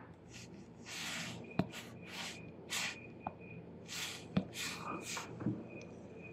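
A man's breathing close to the microphone: several short airy puffs of breath, with a few faint sharp clicks between them.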